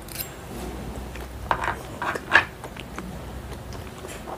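Close-miked chewing of a mouthful of steamed chicken momo, with wet mouth sounds that come in a short cluster, loudest a little after two seconds in, and a light click right at the start.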